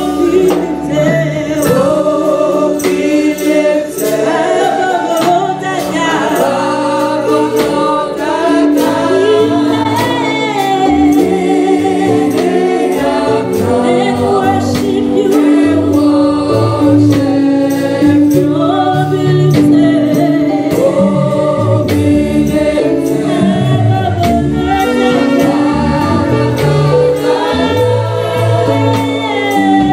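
Gospel worship song sung into microphones by a worship team of women's and men's voices, over a band with a bass line and a steady beat.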